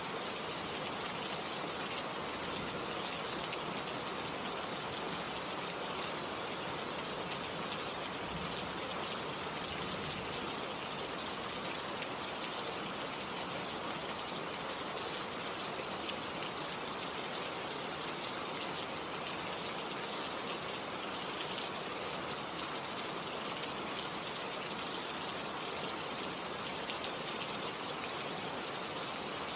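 Steady rain falling, a dense even patter of many drops.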